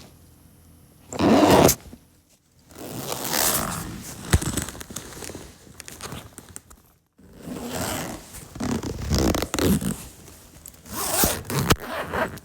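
Zipper being pulled repeatedly: a quick loud zip about a second in, a long slow zip with a fine ratcheting texture lasting about four seconds, then several uneven pulls and a fast loud zip near the end.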